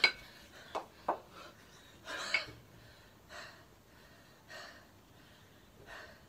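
Kettlebell athlete breathing hard while holding two kettlebells in the rack position: short forceful exhalations every second or so. It opens with a sharp knock as the kettlebells drop back into the rack from overhead.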